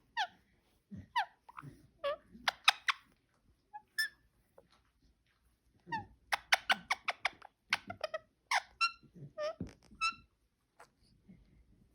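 Parakeet chirping: short high calls, many sliding down in pitch, with a quick run of chirps about six seconds in and brief pauses between bursts.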